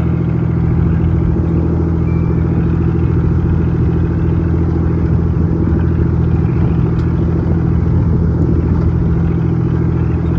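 A boat's engine running steadily, a constant low hum with no change in pitch.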